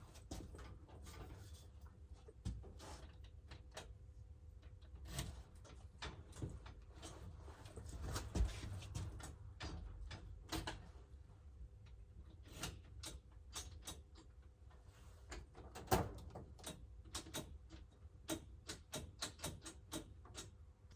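Keys jingling and a key clicking and scraping in a vending machine's lock as it is jiggled and turned, a long string of irregular small metallic clicks with louder knocks about eight and sixteen seconds in; the lock does not give.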